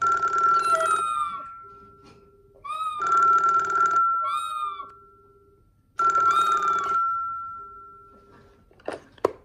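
A telephone ringing three times, each ring about a second long and about three seconds apart, leaving a fading tone after each, with a parrot's short rising-and-falling calls between the rings. A few sharp clicks near the end.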